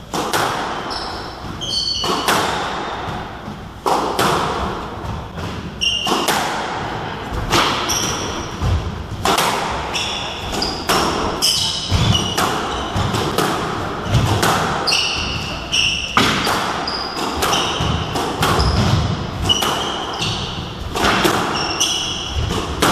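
Squash rally: the ball cracking off racquets and the court walls about once a second, each hit ringing in the enclosed court, with many short high squeaks of shoes on the wooden floor between the shots.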